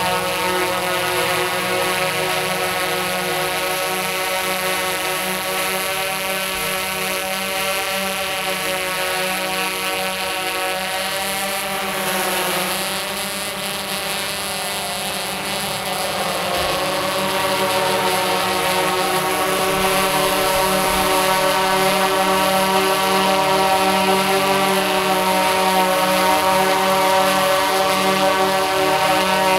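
Tarot X8 octocopter's motors and DJI 1552 propellers running in flight, a steady multi-tone buzz whose pitch sags briefly near the middle and comes back up, then grows louder in the second half.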